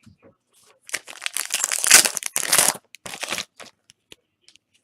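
Foil wrapper of a trading-card pack being torn open and crinkled: a loud rustling tear lasting about two seconds, a shorter crinkle just after, then a few light ticks.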